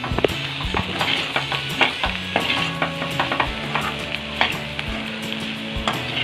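Broccoli and egg stir-fry sizzling in a hot pan while a spoon stirs and scrapes through it, with many short clicks against the pan.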